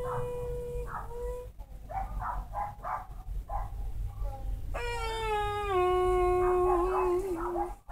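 A dog howling: two long, held wails that step up and down in pitch, with a run of short yelps between them.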